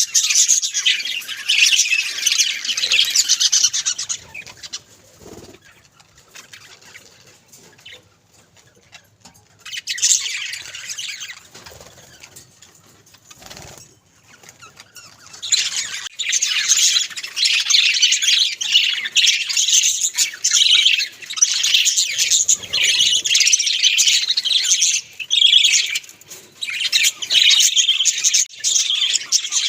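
Budgerigars chattering and warbling in a fast, busy stream of high chirps, in bursts at first with a lull of several seconds, then continuous from about halfway on.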